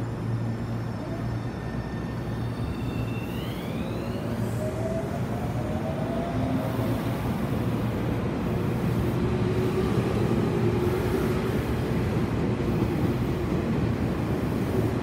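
Tobu 30000-series electric train pulling away from the platform: its traction motors whine in tones that glide upward about three seconds in as it accelerates. A low rumble from the wheels grows steadily louder as the cars pass.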